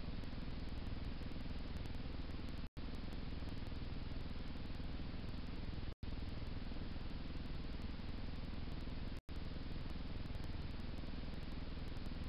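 Steady hiss and low rumble from a wildlife camera's microphone, with no distinct sound in it; the sound cuts out for an instant about every three seconds.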